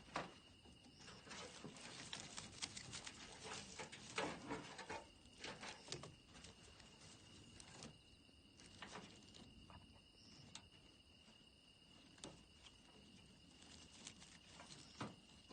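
Wood fire crackling with sharp snaps and pops, thick for the first several seconds and sparser after, over a steady high-pitched tone.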